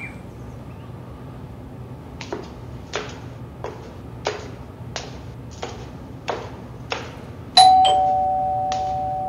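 Footsteps climbing stairs, about three steps every two seconds, then an electric ding-dong doorbell rings about three-quarters of the way in, a high tone followed by a lower one that keep ringing and slowly fade. The doorbell is the loudest sound.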